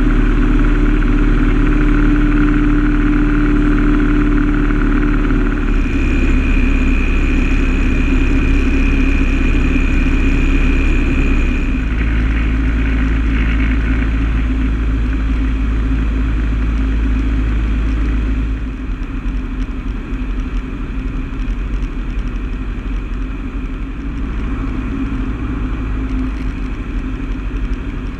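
Cockpit noise of a single-engine light aircraft's piston engine and propeller in flight on approach to the runway, a steady drone. A steady high tone sounds for several seconds in the first half, and about two-thirds of the way through the engine note drops and grows quieter as power comes back.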